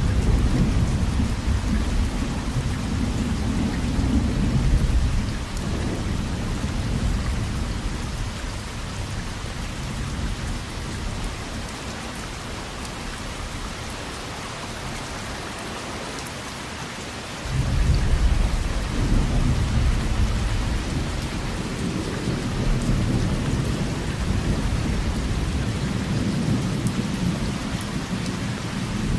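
Steady heavy rain with rolling thunder: a low rumble fades out over the first few seconds, and after a quieter stretch of rain a new thunder rumble breaks in suddenly past the halfway mark and rolls on.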